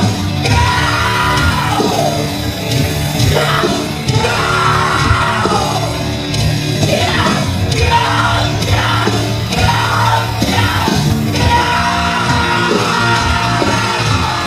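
Loud post-hardcore rock: a band playing with heavy guitars and drums under shouted vocals.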